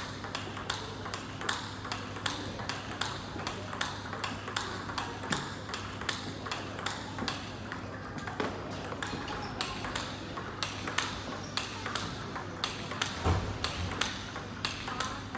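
Table tennis warm-up rally: the plastic ball clicking back and forth off the rubber bats and the table in a quick, even rhythm of sharp ticks, two to three a second.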